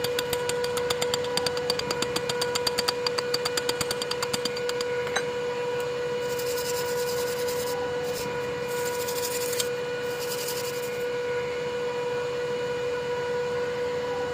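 Arc-welding setup with a steady high electrical hum throughout. For the first four seconds there is rapid ticking at about seven or eight a second. Later come three short bursts of hiss.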